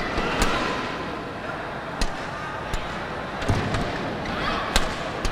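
Badminton rally: rackets striking the shuttlecock in about five sharp cracks, a second or so apart, over steady arena crowd noise.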